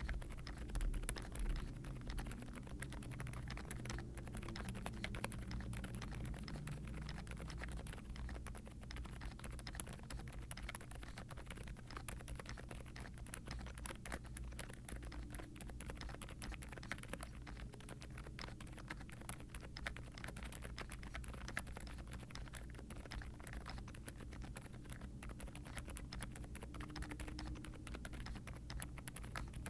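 Continuous fast typing on a gasket-style aluminium Zoom75 mechanical keyboard with Outemu Silent Lemon V3 silent tactile switches under a polycarbonate plate. The strokes are soft and muted, the switches' rubber dampers deadening the bottom-out and return, so the keystrokes come as a quiet, dense patter, with doubleshot ABS keycaps.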